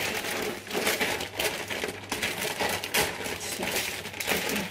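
Plastic bag of frozen chips crinkling steadily as it is pulled open.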